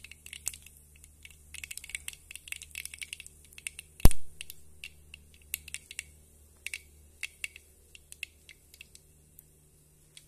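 Tempering seeds popping and crackling in hot oil in a black iron kadhai: quick sharp pops, thick at first and thinning out toward the end, with one much louder knock about four seconds in.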